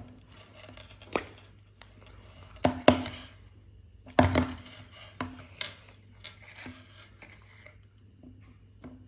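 Slime and its small plastic tub being handled: irregular crackling clicks and squishes, with a few sharper pops about one, three and four seconds in.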